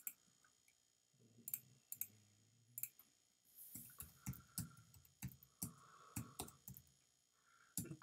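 Faint computer mouse click, then scattered computer keyboard key presses as a price is typed into form boxes, coming thicker from about four seconds in.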